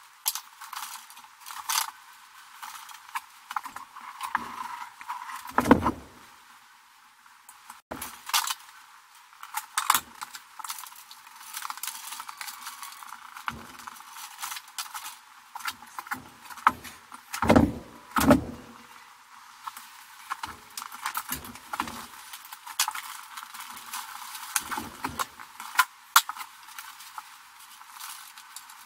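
Irregular clicks, light rattles and rustling of hands working electrical cables and wires into a metal breaker panel, with a few louder knocks about six seconds in and again around seventeen to eighteen seconds.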